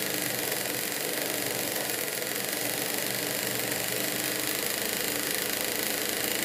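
Industrial sewing machine running steadily at speed, stitching a gathering line along a fabric edge.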